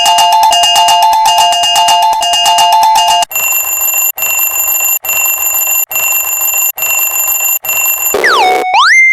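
Japanese railroad-crossing warning bell sounds, electronic and edited. First a fast chime alternating between two pitches. After about three seconds it changes to a higher ringing tone that repeats a little faster than once a second. Near the end it turns into a tone that slides down and up repeatedly.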